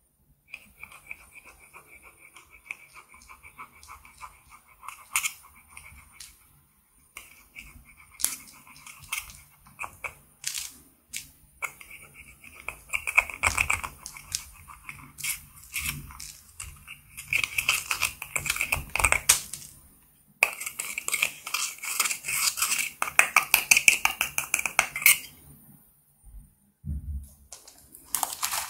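Metal tweezers scraping and crumbling pressed powder makeup out of a plastic compact, a fast gritty scratching in runs that grows louder and stops a few seconds before the end.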